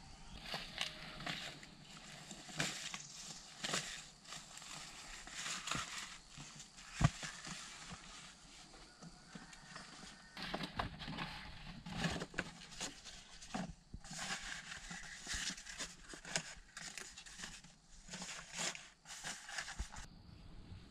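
Irregular rustling and crackling of large leaves and dry leaf litter being handled and moved through, with one sharp knock about a third of the way in.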